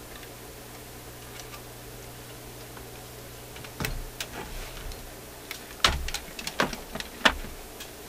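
A steady low mains hum from the 6V6 tube PA amplifier, typical of its very high-impedance input left open, which picks up hum. From about four seconds in, a handful of sharp clicks and knocks come as test leads and clips are handled on the amplifier chassis and bench.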